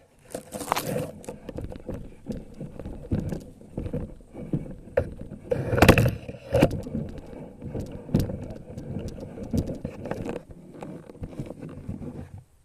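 Irregular rustling and scraping with scattered knocks, the loudest burst about six seconds in.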